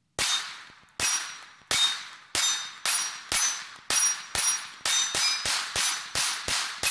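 A 9mm Glock pistol fired in a string of about fifteen shots, the pace quickening from roughly one shot every 0.7 s to about three a second. Each shot is followed by a short ring from the steel target plates being hit.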